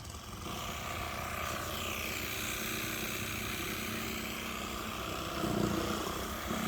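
Steady engine drone that comes up about half a second in and carries on, swelling slightly near the end.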